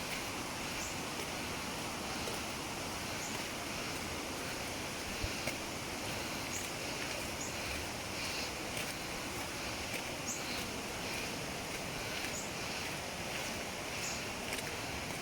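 Steady rushing of a jungle waterfall and stream, with short high chirps every second or two.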